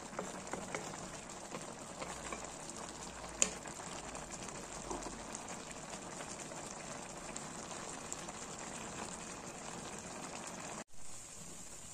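Fish and bamboo-shoot stew boiling in a metal pot: a steady bubbling hiss. A few clicks of a wooden spatula against the pan come in the first few seconds, and the sound drops out for an instant near the end.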